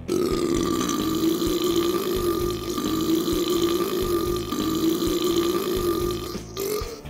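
One long, drawn-out human burp lasting about six and a half seconds, held at a fairly steady pitch with a slight wavering, and rising briefly just before it breaks off.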